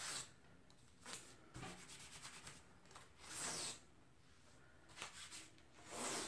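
Adhesive stencil being rubbed by hand: a series of about five faint, short rubbing swishes, the longest about three and a half seconds in.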